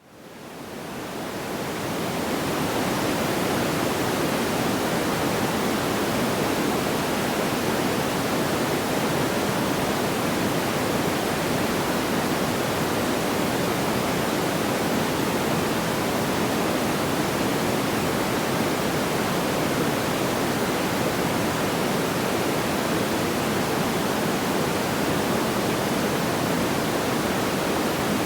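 Steady, even rushing noise like pink noise, with no crackles or pops. It fades in from near silence over the first two seconds, like a looped sleep-sound track restarting.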